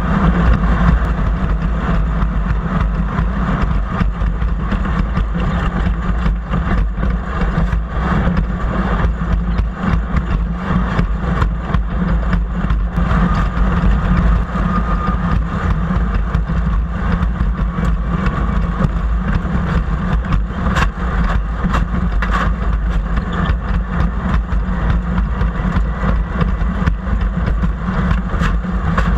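An engine running steadily, with a strong low rumble and no clear change in speed.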